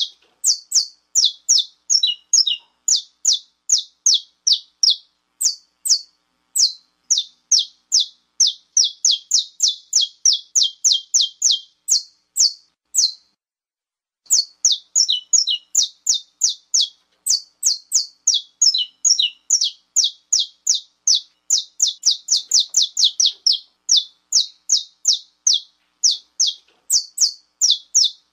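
Saffron finch (canário-da-terra) giving its 'estalo' call: a long series of short, sharp, high notes repeated about three to four a second, with a pause of about a second roughly halfway through.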